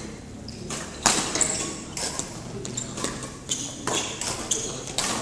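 Badminton rackets hitting shuttlecocks, a sharp crack about every half second, with short high squeaks of court shoes on the hall floor between hits.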